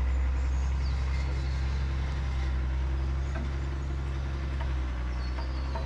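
Vehicle engine running steadily, a low, even hum with no change in pitch, with a few faint bird chirps above it.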